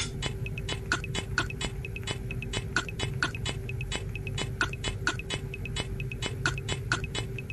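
Background music with a ticking, clock-like percussion beat over a steady held tone.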